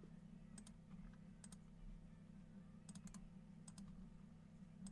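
Faint, scattered clicks of someone working at a computer, several coming in quick pairs, over a low steady hum.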